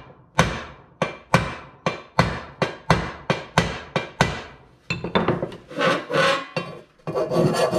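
Hammer tapping a welded sheet-steel panel, about three sharp metal strikes a second for roughly four seconds, knocking down high spots left by welded relief cuts. A few irregular knocks follow, then near the end a file starts rasping across the steel.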